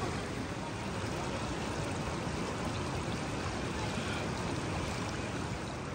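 River water rushing steadily over a rocky bed.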